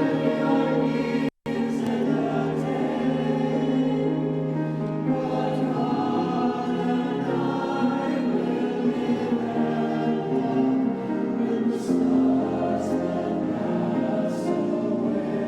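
Youth choir singing in several-part harmony, with long held chords. The sound cuts out for an instant just over a second in.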